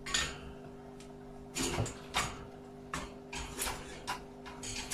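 A series of short, irregular scuffs and rustles, about seven in all, over a steady low hum.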